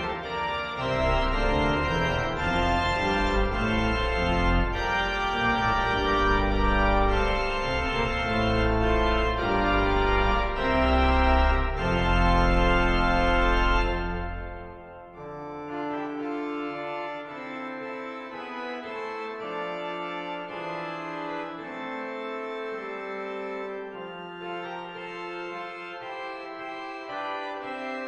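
Pipe organ music from the Hereford Cathedral organ, played through the Hauptwerk sampled virtual organ. It plays loud with deep pedal bass and closes a phrase on a held chord about halfway through. It then continues softer and higher on quieter stops, without the deep bass.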